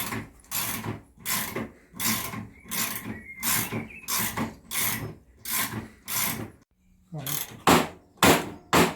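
Ratchet spanner worked back and forth on a stubborn suspension nut, each short back-stroke a quick run of ratchet clicks, about one and a half strokes a second. There is a brief pause about two-thirds of the way through before the strokes resume.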